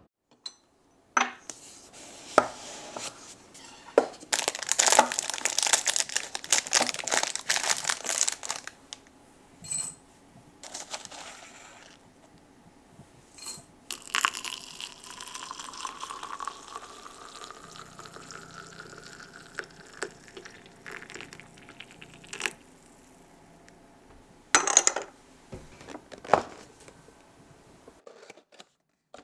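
Dried loose tea rustling and rattling into a glass teapot, then water poured in with a pitch that rises steadily as it fills. Near the end come a few sharp knocks and rustles as a paper cake box is handled.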